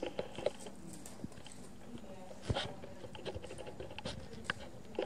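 A cat chewing and tearing at a shredded cardboard toilet paper tube: a scatter of small crackles and rips, with a louder crunch about two and a half seconds in and another near the end.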